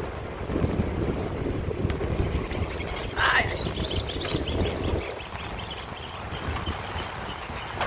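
Wind buffeting the microphone of a camera carried on a moving bicycle, an uneven low rumble that eases a little about five seconds in.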